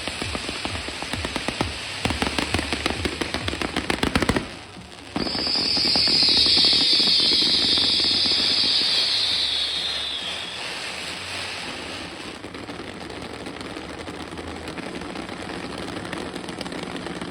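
Fireworks crackling in a rapid dense string for about four seconds. After a brief drop, a loud high hiss runs for about five seconds, sinking slightly in pitch. Steadier, quieter noise follows.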